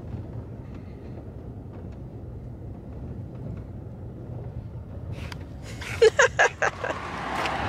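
Steady low road and engine hum heard from inside a moving vehicle's cabin. About six seconds in there is a quick run of four or five short, sharp sounds.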